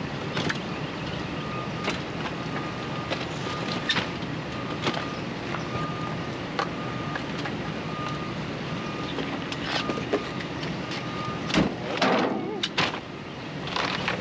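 A vehicle's reversing alarm beeping steadily about once every second, over a low engine rumble. Light knocks and rustles of trash being moved come throughout, with a louder clatter and rustle near the end.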